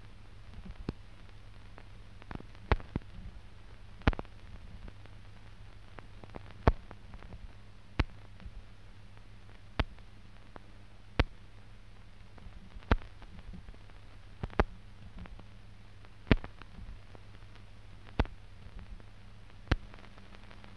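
Unscored stretch of an old newsreel film soundtrack: a steady low hum and hiss, broken by sharp clicks roughly every one and a half to two seconds.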